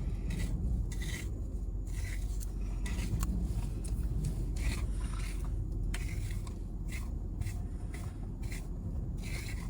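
Irregular rustling and rubbing scrapes, over a steady low rumble.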